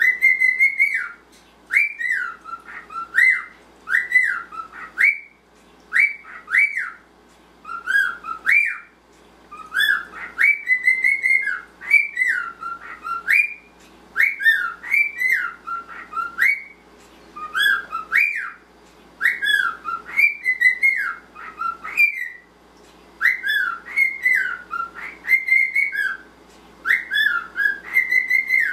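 Male normal grey cockatiel whistling a song: phrases of sliding whistled notes that swoop up and down, repeated with short pauses every couple of seconds.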